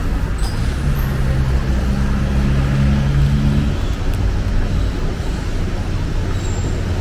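Seoul Subway Line 9 train noise: a steady low rumble with a droning hum that stops about four seconds in.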